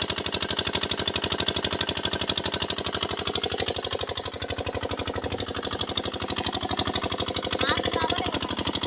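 Small single-cylinder engine running steadily, with a rapid, even thumping of about a dozen beats a second.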